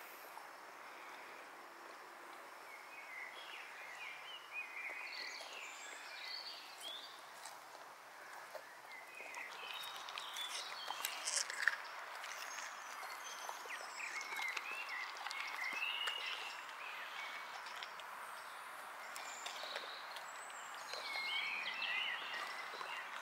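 A boxer dog chewing a whole cucumber, with a cluster of sharp crunching bites around the middle. Birds chirp and trill in the background.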